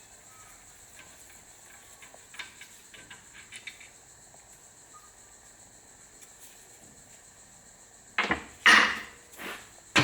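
Light metal clicks from tools on the fork leg, then a few loud knocks and scrapes near the end as the fork parts are handled, over a faint steady chirring of crickets.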